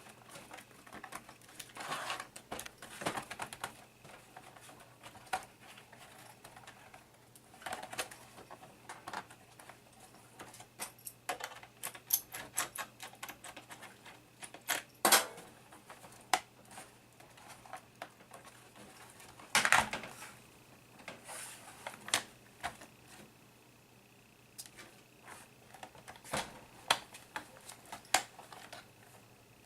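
Irregular clicks, taps and light clatter of a laptop's plastic case and small parts being handled and worked on by hand during disassembly. A few sharper knocks stand out about halfway through and again a little later.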